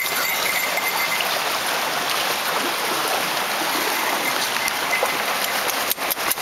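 Shallow mountain creek running over rocks: a steady rushing of water.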